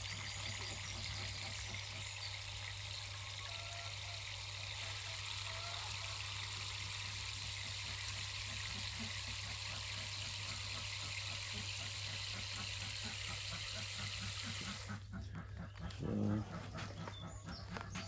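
Steady hiss of running water that cuts off abruptly about fifteen seconds in, followed a second later by a brief louder sound.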